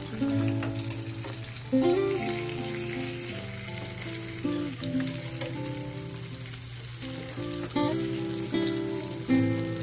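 Dried fish frying in hot oil in a pan, a steady sizzle, under background music.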